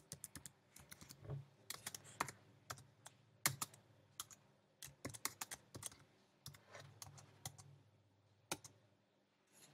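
Computer keyboard typing: quiet, irregular keystroke clicks with short pauses, stopping about a second before the end.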